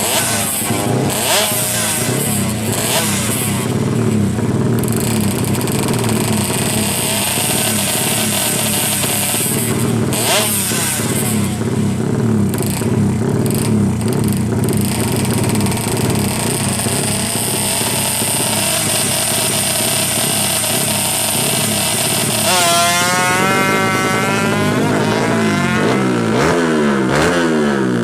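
Modified Yamaha Alfa 116 cc two-stroke motorcycle engine with a 35 mm carburettor, running at a steady speed. About two-thirds of the way through the revs climb sharply, and near the end it revs up and drops back several times in quick succession.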